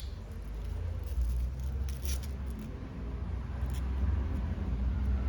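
Faint clicks and rustles of small objects being handled, over a steady low hum.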